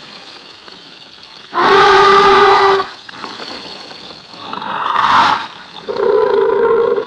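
Alligator roaring three times: a steady pitched call of about a second, then a call that grows louder over about a second and cuts off, then another steady pitched call.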